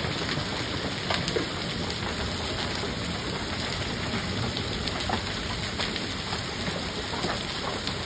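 Heavy downpour of rain and hail in a severe thunderstorm, a steady hiss broken by scattered sharp ticks of hailstones striking the ground and pavement.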